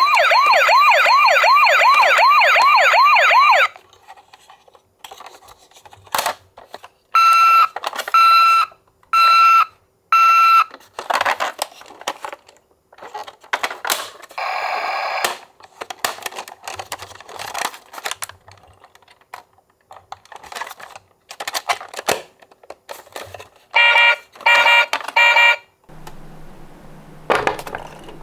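A toy ambulance's electronic siren warbles rapidly for a few seconds. It is followed by four steady electronic beeps about a second apart, scattered plastic clicks and knocks, and three more short beeps near the end.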